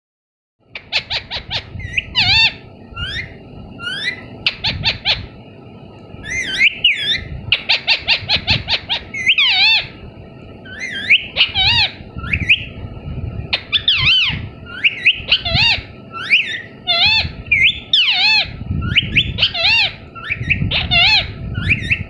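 Pet Alexandrine parakeet calling and chattering: a long series of short, bending, whistle-like calls and rapid runs of harsh notes, with short pauses between bursts.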